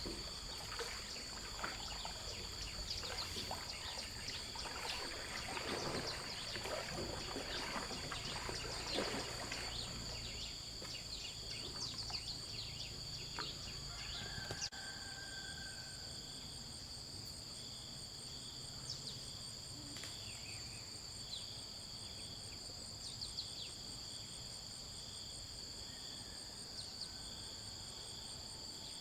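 Steady high-pitched insect chorus with continuous trilling. Through the first half it is mixed with scattered clicks, knocks and a low rumble. After an abrupt change about halfway, an evenly pulsing chirp joins in.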